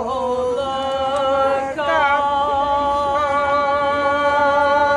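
A small group of voices singing a slow song in long held notes, with a violin playing along.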